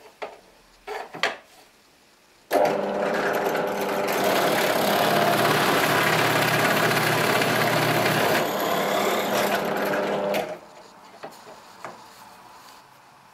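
Drill press running with a spade bit boring through a reclaimed pine block: a steady motor hum with cutting noise that starts abruptly about two and a half seconds in and stops after about eight seconds. A few light knocks of the wood being handled come before and after.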